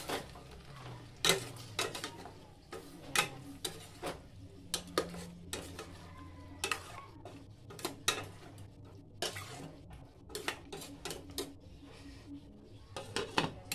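Long metal ladle stirring chicken pieces in a stainless steel pot, knocking and scraping against the pot's sides and bottom in irregular clinks, one to three a second.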